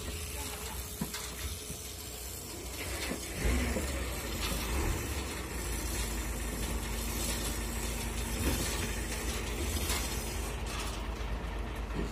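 Truck engine running with a steady low rumble that grows stronger about three and a half seconds in, with scattered mechanical clanks.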